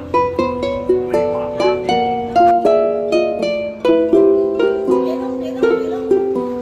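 Background music: a light melody of quick plucked-string notes, each dying away, over a steady lower note.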